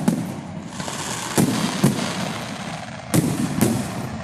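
Aerial firework shells bursting overhead: four sharp bangs in two pairs, with continuous noise in between.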